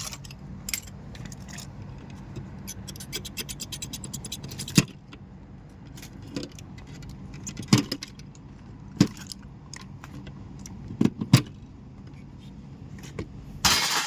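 Metal clinking and rattling as hand tools and small metal parts are handled, with a quick run of small clicks and then several sharp metallic knocks, over a steady low machine hum.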